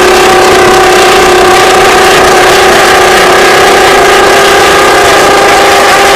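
Several Yamaha FZR1000 inline-four sport bikes with modified open megaphone exhausts held at high revs together, a very loud, steady, high-pitched note that hardly changes pitch.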